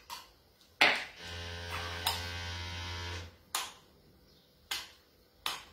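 Metal potato ricer being worked, giving a few sharp clacks and knocks as its handles and basket strike each other and the wooden board, the loudest about a second in. A steady electric buzz runs for about two seconds in the middle.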